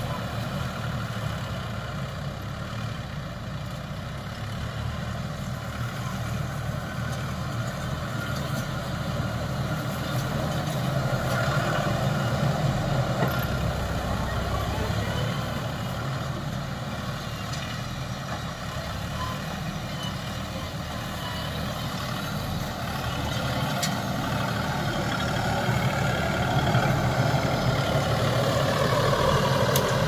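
Sanman 6000 tractor's diesel engine running steadily, then speeding up and growing louder near the end.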